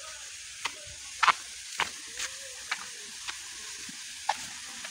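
Water running steadily in a channel feeding a bathing pool, with about eight sharp splashes at irregular intervals, the loudest about a second in.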